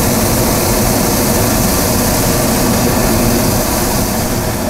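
Hot air balloon's propane burner firing in a loud, steady blast.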